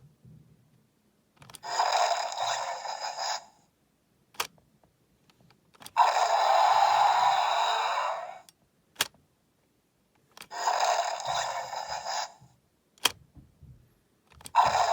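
A Jurassic World Allosaurus toy playing its recorded roar sound effect, about two seconds per roar, three times, with a fourth starting near the end. A single sharp click comes in each gap between roars.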